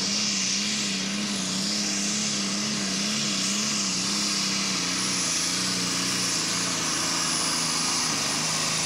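Turbocharged diesel engine of a New Holland-bodied pulling tractor running hard under load as it drags the weight-transfer sled down the track. The pitch drops a little about three-quarters of the way through.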